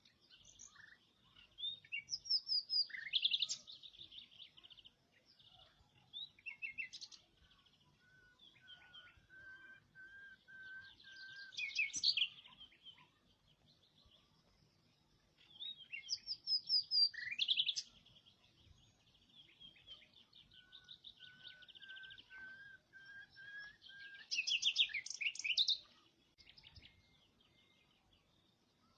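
A songbird singing: bouts of rapid high trills and chirps about every six to eight seconds, with a lower, steadier whistled note held for a few seconds between them.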